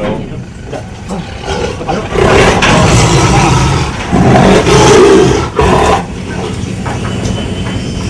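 A Sumatran tiger giving two loud, long calls, each well over a second, the first starting about two seconds in. A steady low hum follows near the end.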